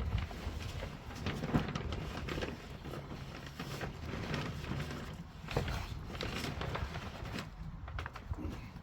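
Irregular scrapes and knocks of shovels and rakes working wet concrete for a floor slab, over a steady low rumble.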